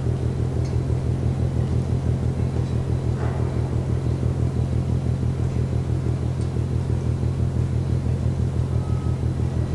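Container ship MAERSK TAIKUNG giving off a steady low pounding, like drums, at an even rate of about four to five beats a second, heard from more than a kilometre away.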